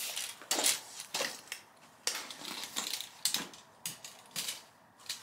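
Tape measure and fabric tool bag being handled while the bag is measured: a string of short, sharp, irregular clicks and clatters from the tape's metal blade, mixed with rustling of the bag's fabric.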